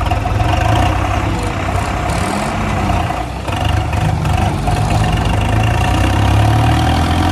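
Diesel tractor engines running under load: a steady low rumble with a held tone above it, rising in pitch near the end.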